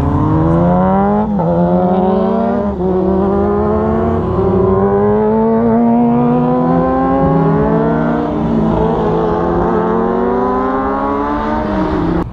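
Sport motorcycle engines accelerating hard through the gears, the pitch climbing and dropping back at each upshift, several times over.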